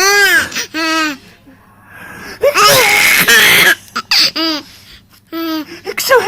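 A seven-month-old baby's high-pitched belly laughs in short bursts, broken by a grown man's loud sneeze about two and a half seconds in, then more of the baby's laughter in response.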